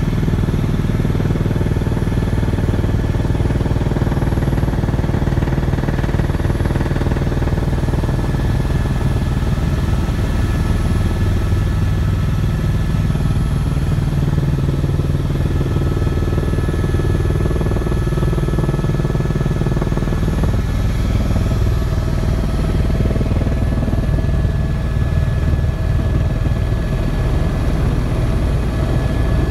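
Helicopter cabin noise in flight on approach to land: a loud, steady drone of rotor and turbine, with a few thin, steady whines above it.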